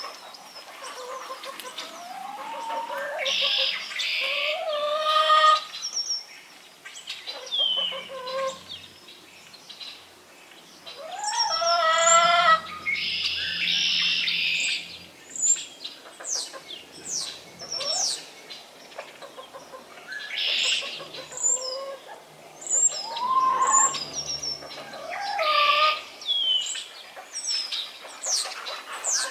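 Backyard hens calling with rising, drawn-out notes every few seconds, while small birds chirp high and quick in between.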